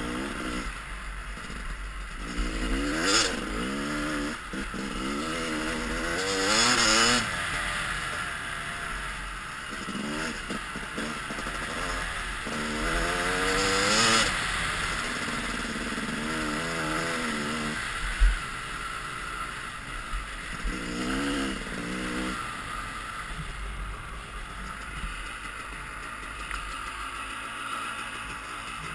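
Yamaha dirt bike engine revving up and dropping back again and again as the rider works the throttle through the gears, with one sharp knock partway through.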